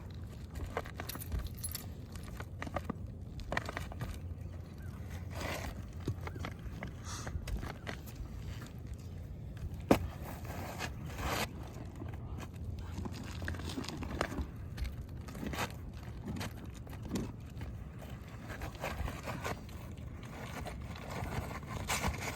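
Scraping, rustling and clicking of hands and tools working on asphalt roof shingles, with one sharp click about ten seconds in, over a steady low rumble.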